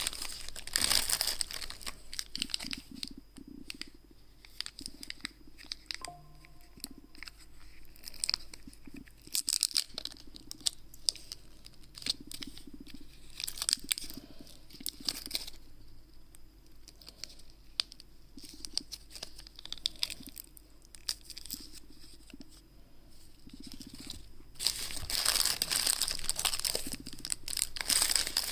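A chocolate bar's wrapper being torn open and crinkled by hand, in irregular rips and crackles. It becomes a denser, louder run of crinkling about four seconds before the end.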